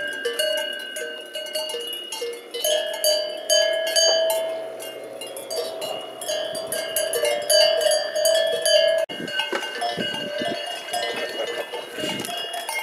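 Many cowbells clanking irregularly, several bells of different pitch ringing over one another. There are a few low bumps near the end.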